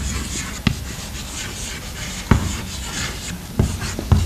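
Chalk writing on a blackboard: a dry scratching as the letters are drawn, with four sharp taps as the chalk strikes the board.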